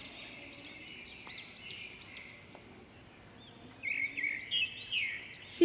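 Birds chirping faintly in the background: a run of short, repeated chirps over low background noise.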